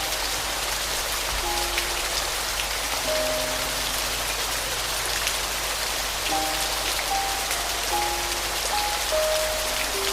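Steady rain with a fine patter of drops, under a slow, soft piano melody of single held notes, a few notes each second or two.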